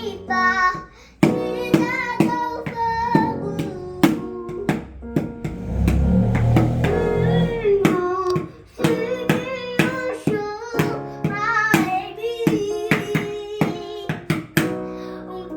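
A child singing over strummed guitar-like strings, with many sharp percussive knocks and a heavier low thumping about halfway through.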